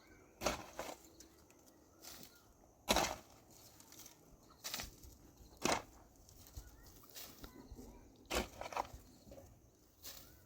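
A series of short, sharp knocks and scrapes at uneven intervals, about six in all, with faint rustling between them.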